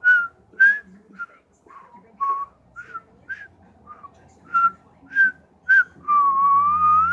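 A person whistling a tune: a run of short notes, about two a second, then one long note that slides upward near the end.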